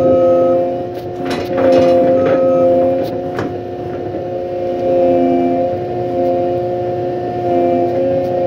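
Bobcat skid-steer loader running, heard from the operator's seat: its engine and hydraulics give a steady, loud, multi-note drone. Sharp clanks and knocks from the loader come between about one and three and a half seconds in.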